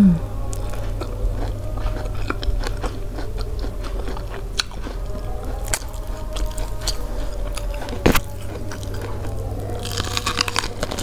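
Close-miked chewing of sweet corn on the cob, with many small wet mouth clicks, then a bite into the cob with a cluster of crisp tearing sounds about ten seconds in. A single sharp knock about eight seconds in.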